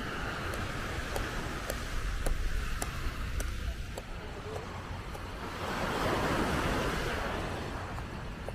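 Sea waves on a beach, with one wave surging up to a peak about six seconds in and then easing off, and wind on the microphone.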